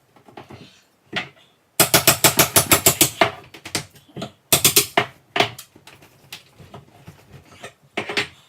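A hammer striking a nail puller, prying off a wooden backsplash: a fast run of sharp strikes about two seconds in, another cluster near the middle, and scattered knocks and scrapes between.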